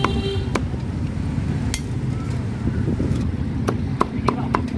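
Steady low rumble of street traffic with sharp knocks, a few spaced out and then a quick run of four near the end.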